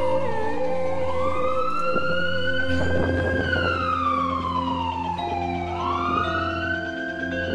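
Ambulance siren in wail mode, its pitch sweeping slowly up and down, each rise or fall taking about two seconds.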